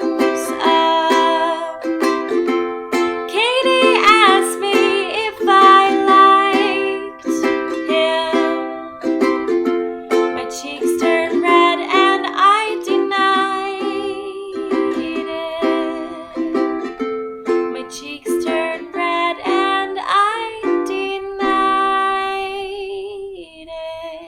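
Ukulele playing the song's closing passage, strummed and plucked chords in a steady rhythm that stop near the end.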